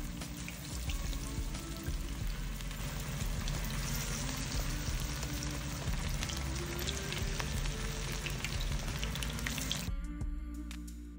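Chicken pakoras in a besan and flour batter sizzling steadily as they deep-fry in hot oil in a frying pan. The sizzle cuts off about ten seconds in, leaving background music.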